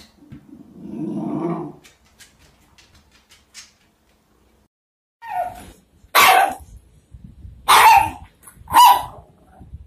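Small dog growling low for about a second and a half at its own reflection in a mirror. After a short pause come four sharp, high barks in quick succession.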